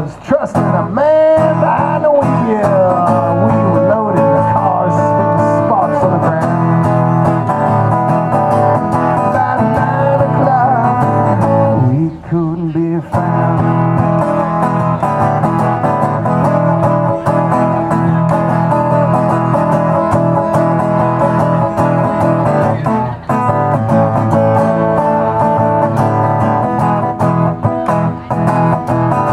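Acoustic guitar strummed in a steady rhythm with a man singing along. The strumming breaks off briefly about twelve seconds in.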